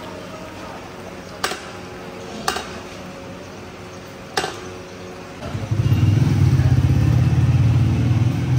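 Three sharp knocks, a metal spoon striking the rim of a large cooking pot of pulao. Then a loud low rumble sets in about five and a half seconds in and holds steady.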